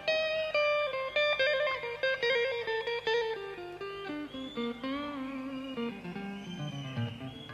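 Electric guitar solo in a live rock performance: a quick line of notes stepping down in pitch, with held notes shaken by vibrato midway and the line settling low near the end.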